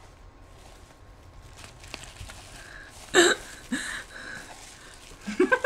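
Bubble-wrap packaging being handled, with faint rustles and clicks. About three seconds in a short loud vocal sound breaks in, and a few more short vocal sounds come near the end.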